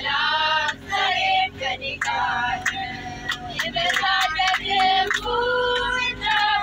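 A song: a high-pitched voice singing a melody with held notes over instrumental backing with percussion.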